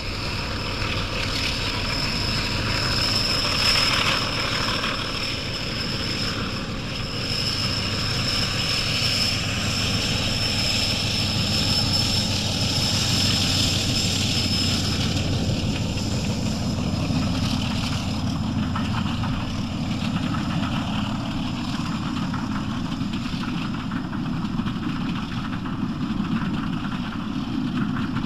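Brush Type 4 diesel locomotive working hard under load, hauling a train up a steep 1 in 75 gradient. The engine runs steadily, with a high whistle over it in the first half that fades out.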